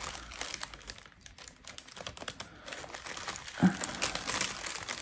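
Small zip-lock plastic bags of square crystal diamond-painting drills crinkling and rustling as hands sort through them, in a run of quick crinkles and small clicks.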